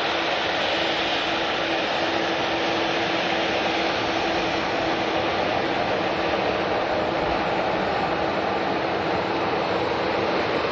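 Jet airliner engines running steadily: an even, unbroken noise with a steady tone through it.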